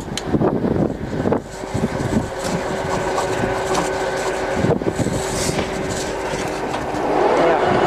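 Heavy-duty engine lathe running under power, its spindle and headstock gears turning with a steady hum and a held tone. There are a few knocks in the first second or so, and the machine gets louder about seven seconds in.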